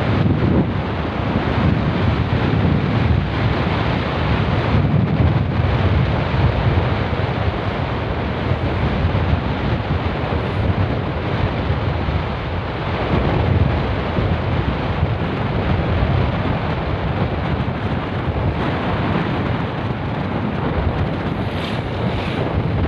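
Wind buffeting the microphone of a camera on a moving motorcycle: a steady, loud rushing noise, heaviest in the low end.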